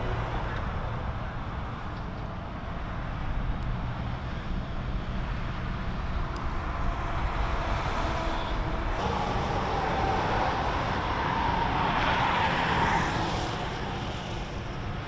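Freeway traffic running steadily with a low rumble; a vehicle passes, swelling louder about three-quarters of the way through and then fading.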